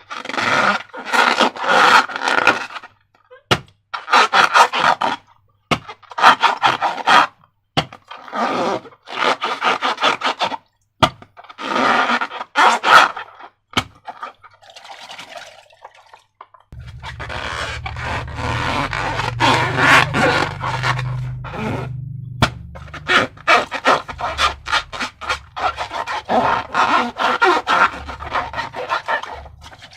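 Slime being worked by hand: repeated bursts of squishing handling noise, each a second or two long, with short pauses and clicks between them. A low rumble comes in about halfway through and continues under the handling.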